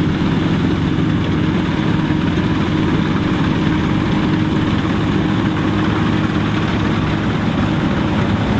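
Dronningborg D900 self-propelled combine harvester running steadily: a loud, constant engine drone with a low hum of several steady tones.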